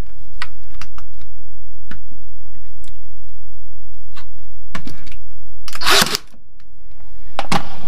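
Ferrex CCT18GW battery nail gun and stapler firing staples into a softwood batten: a few light clicks of handling, then a sharp loud shot about six seconds in and another a moment later. The staples are driven short, left standing proud of the wood.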